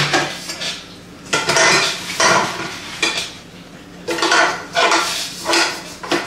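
Cast aluminium cooking pots clanking and scraping against one another as they are nested into a stack, in bursts of metallic clatter: one cluster about a second in and a longer one from about four seconds.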